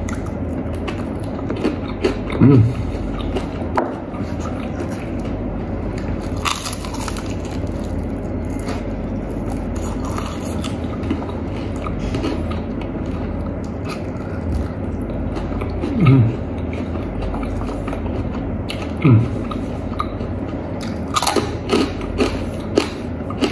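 Close-up chewing and crunching of crispy-coated fried chicken: many small sharp crunches and wet mouth sounds, with three short low hums from the eater.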